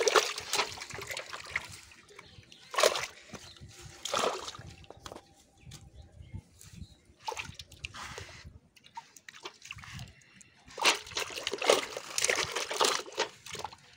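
Freshly caught carp thrashing in a metal pot of water, splashing and sloshing in irregular bursts. The bursts are loudest at the start and again in a cluster a few seconds before the end.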